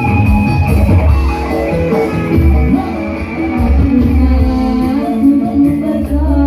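Live dangdut koplo music from an electone band: a keyboard melody over a steady beat of drums and bass.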